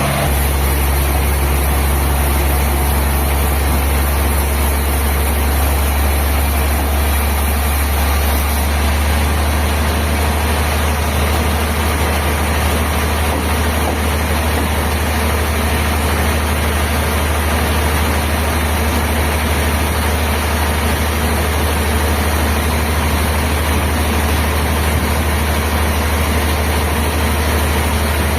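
Heavy sawmill machinery running steadily, a constant low engine drone with a noisy wash over it.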